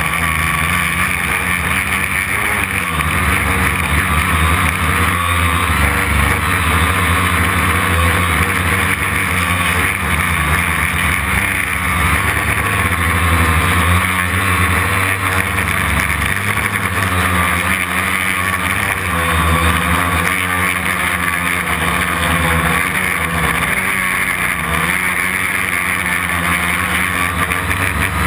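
Homemade quadcopter's brushless motors and propellers running in flight, a steady buzzing whine that wavers slightly in pitch and level, heard close up from a camera on the frame.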